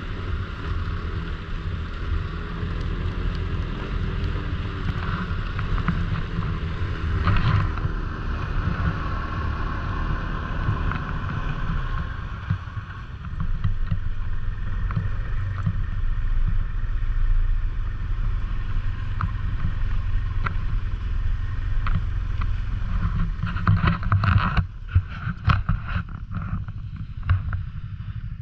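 Snowmobile engine running steadily under way, with a run of sharp clattering knocks near the end.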